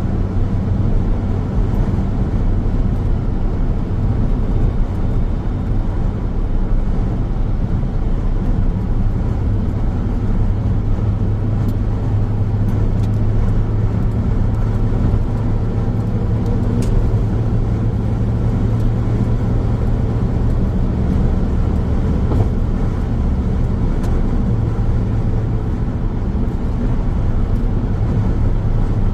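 Steady road noise of a car driving along a highway: a constant low drone with a hiss of tyres and air over it, and a few faint ticks.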